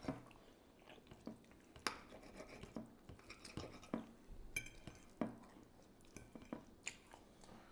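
Faint, scattered clicks and scrapes of forks on plates during a meal, with a short scraping rasp about halfway through.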